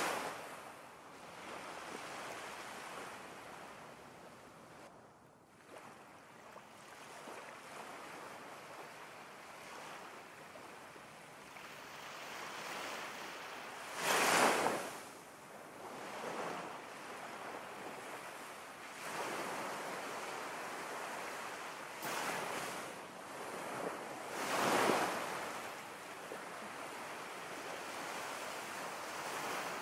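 Steady rushing water ambience like ocean surf, swelling and fading in slow surges. The loudest surges come at the very start, about halfway through, and again near the end.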